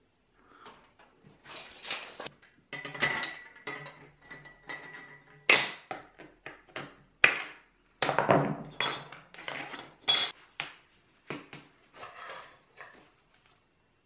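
Thin brass sheet being cut with tin snips and handled on a wooden workbench: a string of sharp snips and metallic clinks, some ringing briefly.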